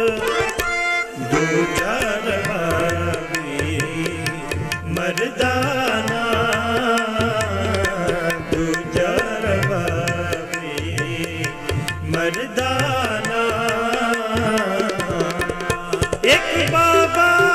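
Sikh shabad kirtan: harmonium melody with a tabla keeping a steady beat, and a voice singing over them.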